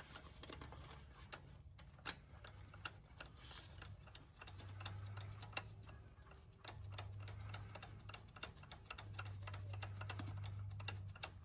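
Scattered light clicks and taps of hands and tools working on a diesel engine's fuel injector and its fittings. A low hum comes and goes in three stretches through the second half.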